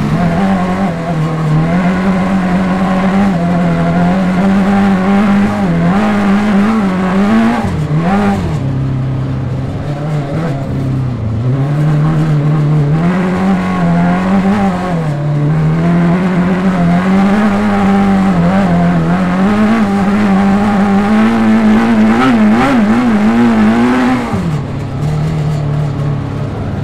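Suzuki Hayabusa motorcycle engine of a Sierra Cars RX3 crosskart buggy running hard, its pitch rising and falling as the throttle is worked. The pitch drops sharply a few times, about eight, eleven and twenty-four seconds in.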